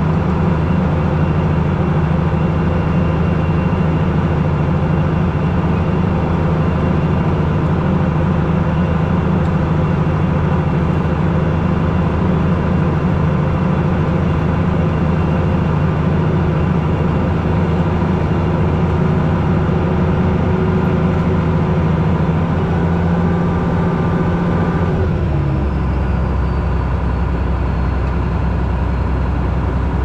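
International Harvester 1486 tractor's six-cylinder turbo diesel running steadily at working revs, heard from inside the cab. About 25 seconds in it is throttled back: the engine note drops to a lower, slower run and a faint high whine falls away with it.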